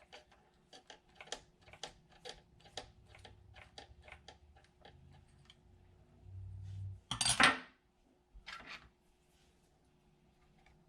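Small metal clicks and taps of a tool working a tiny screw out of an RC truck's rear differential yoke, about two a second, then a loud metallic clatter about seven seconds in and a shorter one a second later.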